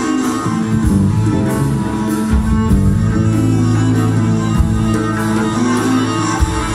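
A live band playing: guitar over bass guitar and a drum kit, with low drum hits and cymbal strokes.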